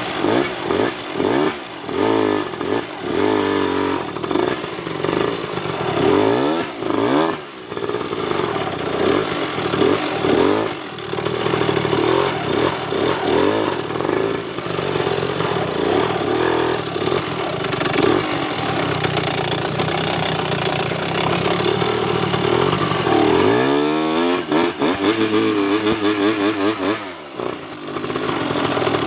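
Motorcycle engine under load, revving up and dropping back again and again as the laden bike crawls through mud, with some clatter from the machine. Near the end the revs climb and fall quickly several times.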